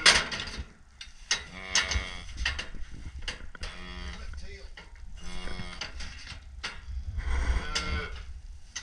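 Calf in a squeeze chute bawling, about four calls, each around a second long. A sharp knock right at the start is the loudest sound.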